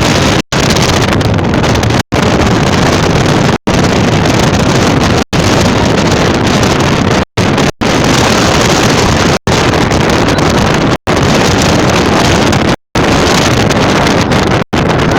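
Loud, steady wind rushing on the microphone, broken by short silent dropouts about every second and a half.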